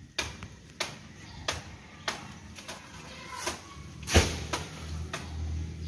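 Machete chopping at coconut palm fronds: a run of sharp chops about every half second, with one heavier blow and a low thud about four seconds in.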